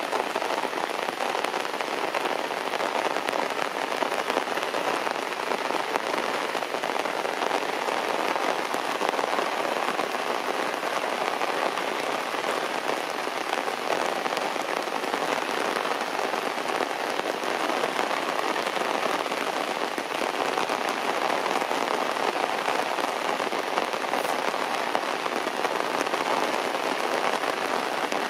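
Heavy rain falling steadily on grass and leafy plants, an even hiss of many drops with no let-up.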